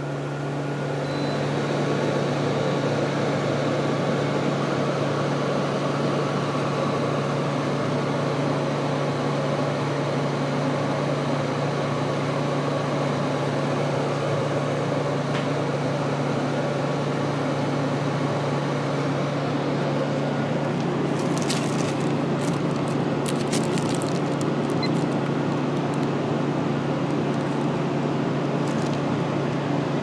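Frigidaire 12,000 BTU window air conditioner running on fan only, with the compressor not yet on. It picks up over the first couple of seconds, then runs steadily with a low hum. A few light clicks come about two-thirds of the way through.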